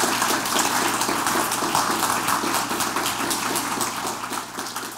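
Audience applauding, a dense patter of many hands clapping that slowly dies away toward the end.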